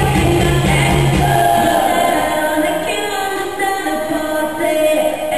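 Recorded song with singing. A heavy bass line plays at first and drops out about a second and a half in, leaving the vocals and higher instruments.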